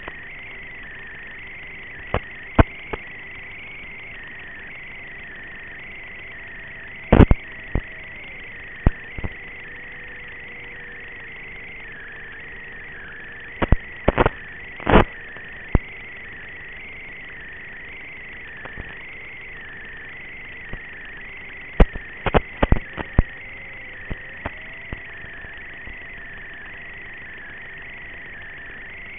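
Brushless outrunner motor (Brotherhobby Avenger 2507 1850kv) and propeller of an FPV plane, heard through the onboard camera/video link as a steady whine. Its pitch drops when the throttle is eased back about a quarter of the way in and climbs again near the end. Sharp crackles of radio-link static break in several times.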